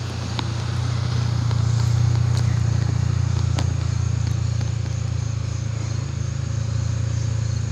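A steady low engine rumble that swells slightly over the first two seconds and holds.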